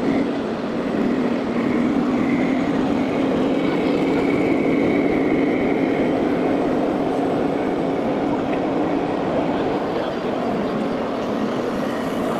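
A steady engine-like running hum, with a low drone and a faint high whine above it.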